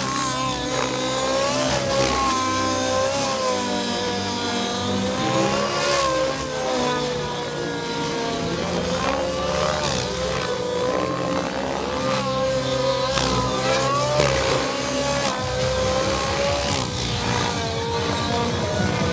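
Large SAB Goblin RC helicopter flying aerobatics: a loud, steady whine whose pitch keeps bending up and down as the rotors and drive change load through the manoeuvres.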